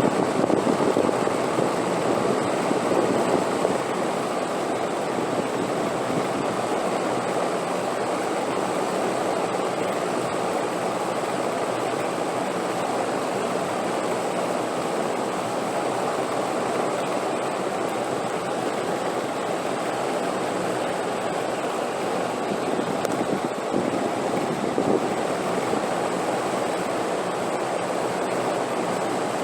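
Steady rushing wind noise, a little louder in the first few seconds, with a faint thin high tone held above it.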